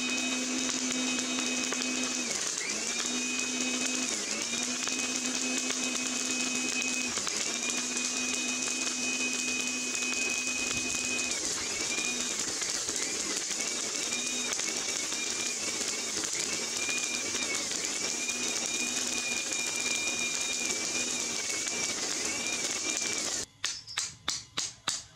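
Electric air blower running steadily into a charcoal forge, a constant rush of air with a motor whine that dips in pitch briefly every few seconds. Near the end it cuts off and a hammer strikes hot steel on an anvil, about three blows a second.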